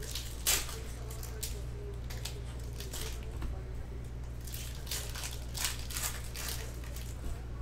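Foil trading-card pack wrappers being torn open and crinkled by hand, in a string of short rustling tears, over a steady low hum.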